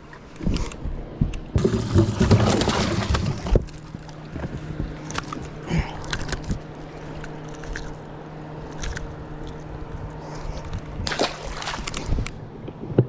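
Water sloshing and gurgling for about two seconds, stopping abruptly, as a bass is handled in a bass boat. A steady low hum follows, with scattered knocks and clicks, one sharper knock near the end.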